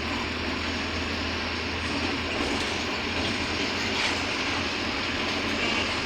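Mercedes-Benz Bluetec 5 city bus engine running steadily under way, heard from inside the passenger cabin together with a steady road noise.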